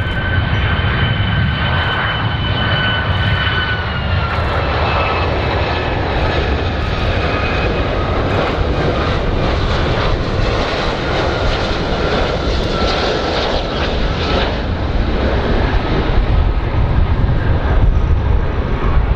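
Boeing 757 jet airliner on final approach with its engines at low power: a steady low rumble with a high fan whine that drops in pitch about four seconds in and sinks further as the plane passes.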